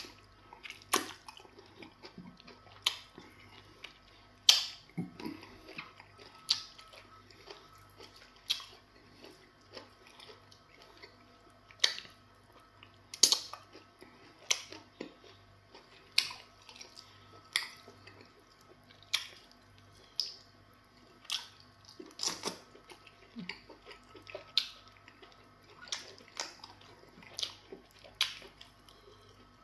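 Wet chewing and mouth smacks of a person eating semo fufu with spinach soup by hand, with sharp wet smacks about once every second or so.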